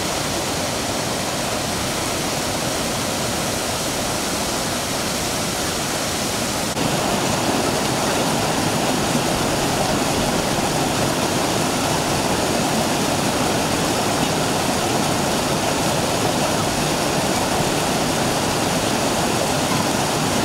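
Mountain stream rushing over rocks and small waterfalls, a steady roar of water that gets louder about seven seconds in.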